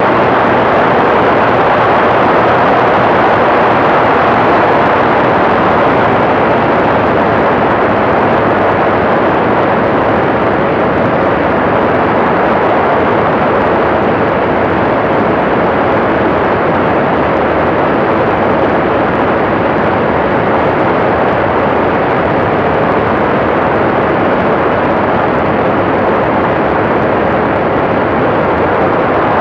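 Steady loud noise of the TrueLite Part 103 ultralight aircraft running: an unbroken rush of engine, propeller and wind that eases off slightly about a third of the way in.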